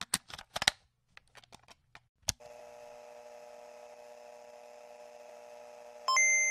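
Electronic soundtrack: a quick run of sharp clicks and ticks, then a steady synthesizer drone of several held tones, with a loud high beep-like tone coming in near the end.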